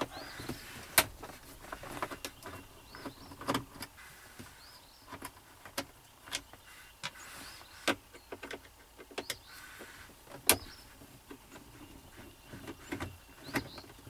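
A screwdriver backing out the screws of a plastic centre dash bezel: scattered clicks and light scrapes of the tool and trim, the two sharpest about a second in and about ten and a half seconds in.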